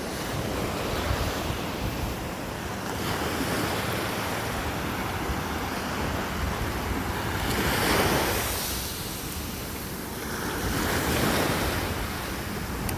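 Ocean surf: waves breaking and washing ashore, swelling louder about two-thirds of the way through and again near the end, with wind buffeting the microphone.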